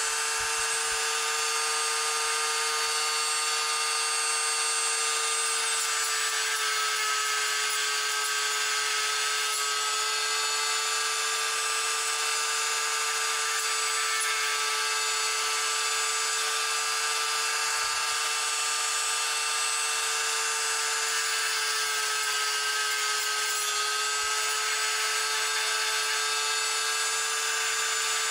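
Small handheld rotary tool with a cut-off disc running at high speed with a steady whine, grinding the outer coating off a burnt resistor. Its pitch sags slightly twice.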